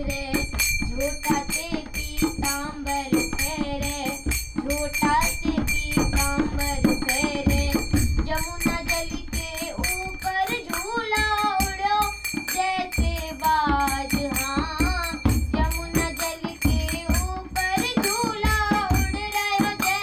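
Young girl singing a song while accompanying herself on a dholak, a two-headed barrel drum, with a steady pattern of hand strokes under the sung melody.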